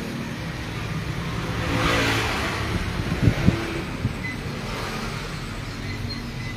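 Background road traffic: the hum of a motor vehicle that swells about two seconds in as it goes by, with two sharp knocks a little past the middle.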